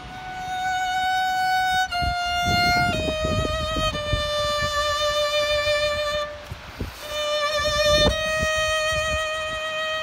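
Solo violin playing slow, long bowed notes with vibrato, stepping down in pitch, with a short break about six and a half seconds in.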